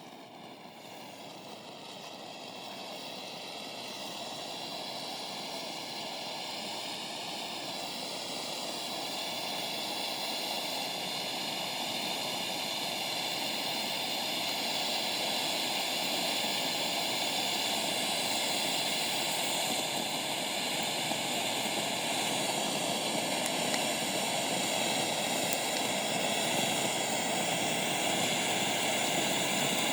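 Firework fountain hissing steadily as it throws sparks, slowly growing louder, with no bangs.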